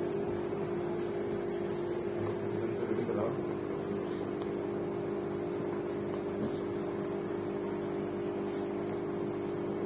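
A steady electrical hum with one constant tone, with a faint brief rustle about three seconds in.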